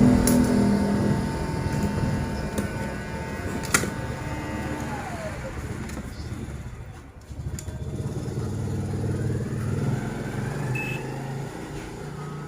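Motor vehicle engines passing, loudest at the start and again past the middle, with one engine tone falling in pitch about five seconds in. A single sharp click sounds near four seconds in.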